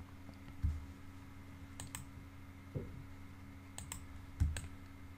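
A few computer mouse clicks, spaced a second or two apart, with some soft low thumps over a faint steady hum.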